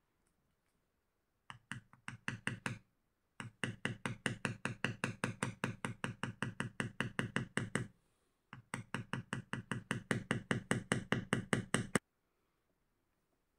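A mallet rapidly tapping a metal leather stamping tool to press lines into a leather piece. The taps come in three runs of even strikes at about six a second, a short one and then two long ones, and stop shortly before the end.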